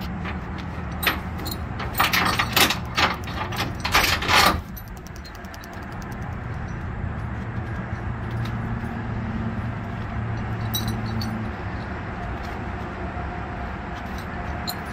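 Metal clinking and rattling as the chain end and hook of a cargo strap knock against a flatbed trailer's steel side rail, a quick run of clinks over the first four or so seconds. After that, a steady low engine hum carries on.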